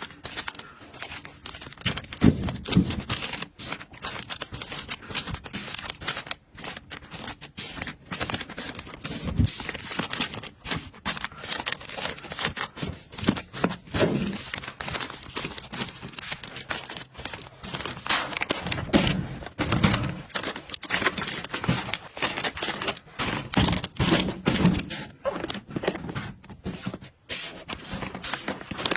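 Busy handling sounds: quick clicks, taps and crinkling rustles as objects are picked up, moved and set down, with a few dull knocks.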